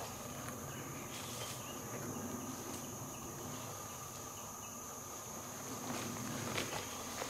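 Rainforest insects chirring steadily at one high pitch, with a lower steady drone under it, a few short faint chirps and a few soft clicks.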